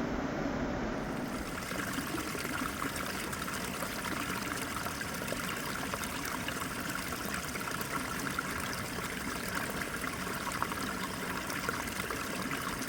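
Mountain river flowing steadily, a continuous rush of water over its bed.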